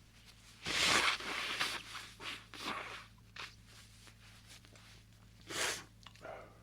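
A man's sneezing fit from allergies: breathy, unvoiced blasts of air through the nose and mouth. The loudest comes about a second in, a run of shorter ones follows over the next two seconds, and one more comes near the end.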